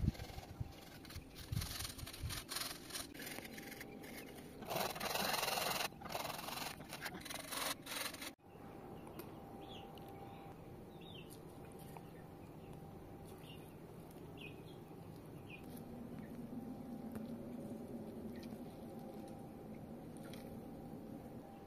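Raw potato being grated on a hand grater into a glass bowl: a run of rhythmic rasping strokes, loudest about five seconds in. It stops suddenly at about eight seconds, leaving a quieter background with a few faint high chirps.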